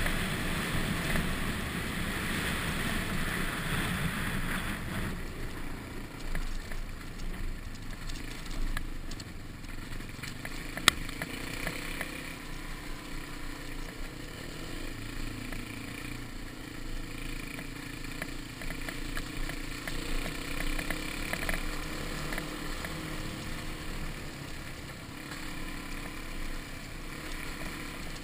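Suzuki DR-Z single-cylinder dirt bike running along a dirt track, mixed with wind and road noise that is loudest in the first five seconds. A single sharp click about eleven seconds in.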